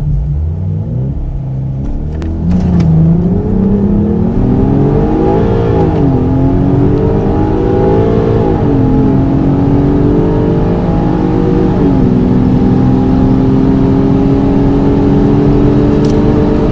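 Car engine accelerating hard at full throttle from a standstill. Its pitch climbs and drops back at each upshift, then holds steady near the end.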